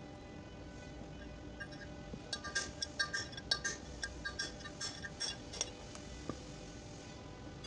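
Steel rod clinking against the bearing race inside a Toyota FJ62 Land Cruiser front wheel hub: a quick, irregular run of light, ringing metallic clinks for about three seconds, starting a couple of seconds in.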